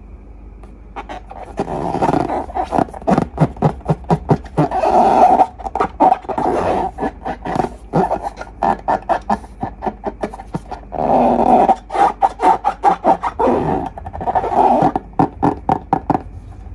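Rubber balloon neck sputtering as its contents are squeezed out, in repeated bursts of rasping, farting noise.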